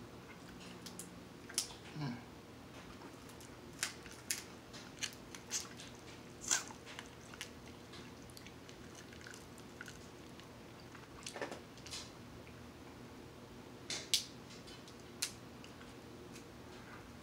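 Eating sounds: king crab leg shells cracking and snapping as they are broken and picked apart by hand, mixed with chewing and mouth sounds. Irregular sharp cracks and clicks every second or so, the loudest about six seconds in and again about fourteen seconds in.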